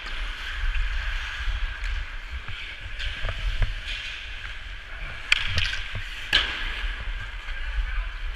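Hockey skates hissing and scraping on rink ice, with several sharp clacks of sticks and puck, the loudest two about five and six seconds in.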